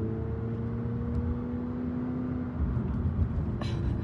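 Car engine running while driving, its note rising slowly for about two and a half seconds before giving way to a rougher low rumble.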